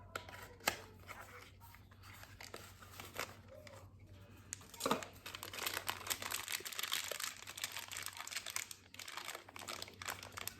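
Packaging of a doorbell's hardware kit crinkling and tearing as it is handled and opened, with scattered clicks at first and dense crackling through the middle.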